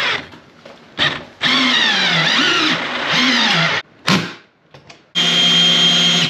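Cordless drill driving the bolts of a TV wall-mount bracket into the wall in several bursts, its motor whine sweeping down and up in pitch as it slows and recovers under load, with a steadier, even run near the end.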